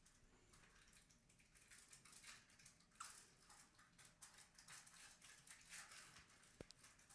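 Near silence with faint, scattered small clicks and rustles throughout.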